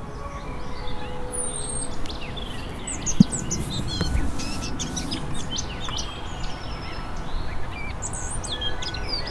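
Wild songbirds chirping and calling from the surrounding trees, many short overlapping chirps and whistles. About three seconds in there is a single thump from a hardcover book being put down on a wooden desk.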